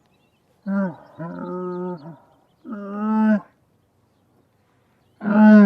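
Camel groaning: three drawn-out, pitched moaning calls with short pauses between, the last the loudest.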